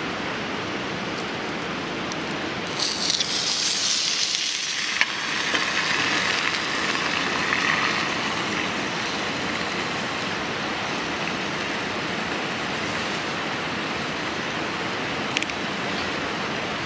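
Wood fire burning under a hot sandwich maker, with a steady hiss. About three seconds in, a sharper hissing sizzle breaks out and dies down over the next few seconds, and a couple of pops come near the end.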